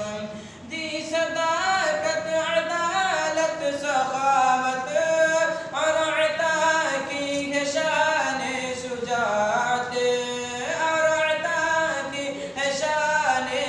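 Unaccompanied male voice reciting an Urdu naat in a melodic, sung style, with long held notes that slide between pitches and brief pauses between phrases.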